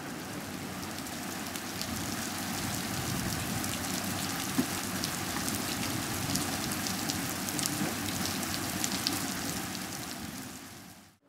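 Steady rain falling on a paved square: an even hiss with many sharp ticks of single drops hitting close by. It fades out near the end.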